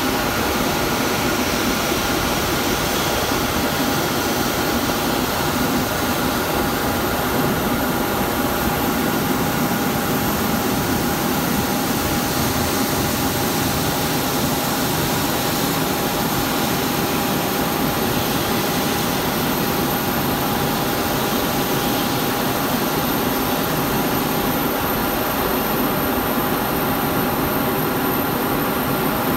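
Airbus A350-900's Rolls-Royce Trent XWB-84 turbofan engines running at taxi power as the airliner taxis: a steady jet rush with a constant high whine.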